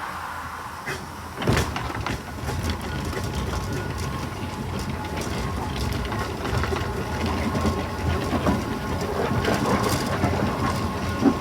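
Fowler BB1 steam ploughing engine travelling on the road: a steady clattering rumble with scattered knocks, and a sharp knock about one and a half seconds in.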